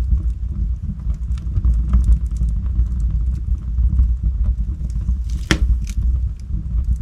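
Wood logs burning in a fireplace: a steady low rumble of the flames with scattered small crackles, and one sharp loud pop about five and a half seconds in, followed by a smaller one.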